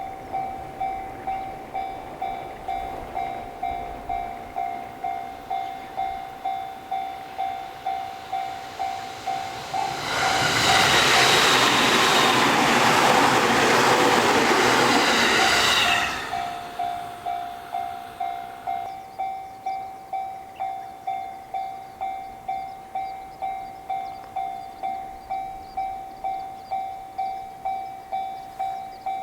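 Japanese level crossing's electronic warning bell ringing steadily, just under two dings a second. About ten seconds in, a JR Sobu Line train rushes past for about six seconds, louder than the bell, then the bell rings on.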